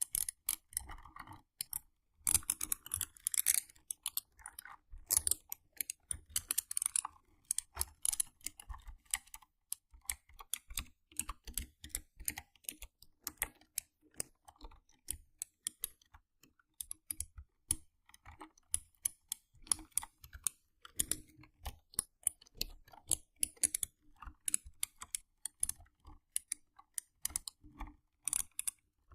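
Mechanical keyboard keys being tapped in quick, irregular runs of clicks, with short pauses between the runs.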